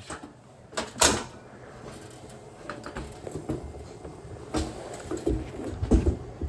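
Handling noises from work on the truck: a few scattered knocks and clunks, the loudest about a second in and near the end.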